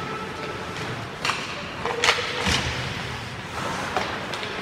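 Ice hockey play: several sharp knocks of puck and sticks against the boards and on the ice, the loudest about two and a half seconds in, over steady rink noise.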